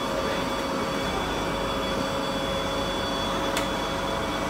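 Transit bus idling at a stop with its doors open: a steady mechanical hum with a faint high whine, and a single sharp click about three and a half seconds in.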